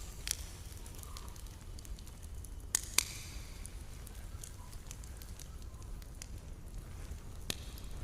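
Campfire burning with scattered sharp crackles and pops, the loudest pair about three seconds in, over a steady low rumble.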